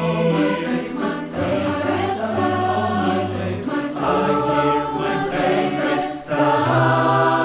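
Mixed choir singing in parts with piano accompaniment. A brief break about six seconds in, then a new chord is held.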